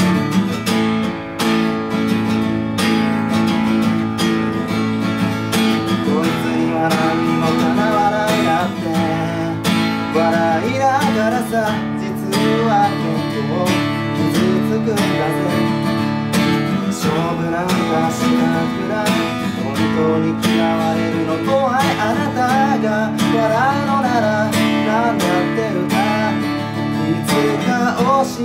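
Acoustic guitar strummed steadily in a song, with a voice singing over it in two stretches, about a third of the way in and again near the end.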